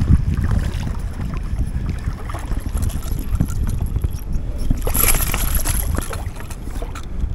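Wind rumbling on the microphone while a baitcasting reel is cranked to bring in a hooked catfish. About five seconds in, the catfish thrashes and splashes at the surface for about a second.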